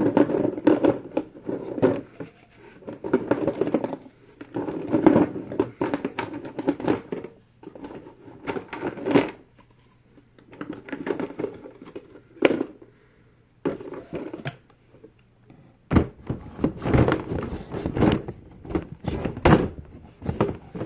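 Plastic fidget toys, pop tubes among them, clattering and knocking against each other and a hard surface as they are dumped out and sorted. The knocks come in quick clusters with short pauses, heavier from about three-quarters of the way in.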